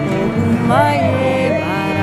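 Music playing: a sung melody with long held notes that slide in pitch, over a steady low beat.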